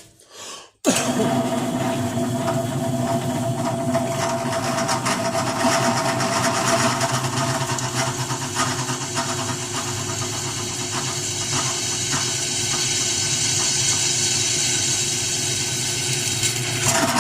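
Drill press starting up about a second in and running steadily, its motor humming, as a titanium-coated 9/32-inch twist drill bit cuts into 1/8-inch steel angle iron. The bit is cutting cleanly, throwing curly chips.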